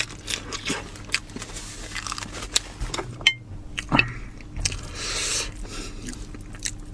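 Close-up eating sounds of a person biting and chewing spicy lamb, with many short wet clicks and crunches.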